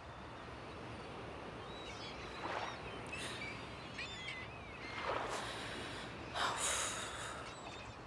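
Quiet outdoor ambience with faint bird chirps, mostly in the middle, and a few brief soft noises.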